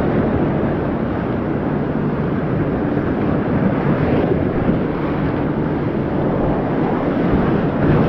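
River rapids rushing and splashing against an inflatable kayak and its paddle, a steady loud churn of whitewater.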